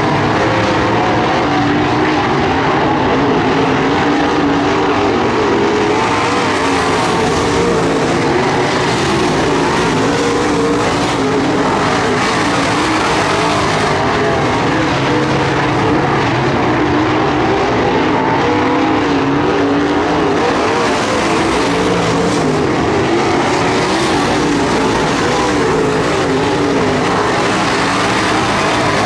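A field of dirt-track modified race cars running at racing speed around the oval, their V8 engines making a loud, continuous blend of engine notes that rise and fall as the cars go by.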